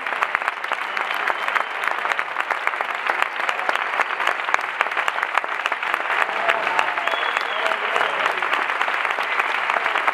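Audience applauding: dense, steady clapping, with faint voices calling out in the middle of it.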